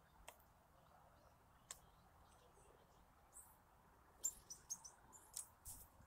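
Quiet garden with two faint sharp clicks at a wooden bird feeder, then a quick run of short high bird chirps and ticks in the last two seconds.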